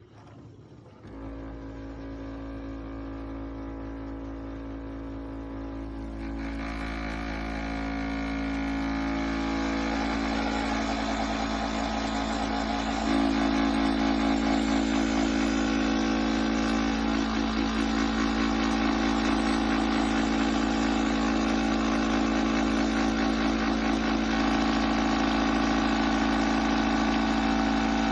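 Breville Bambino espresso machine running: a steady humming drone from its vibratory pump that starts about a second in, grows louder and shifts in tone around six and thirteen seconds in, then holds steady.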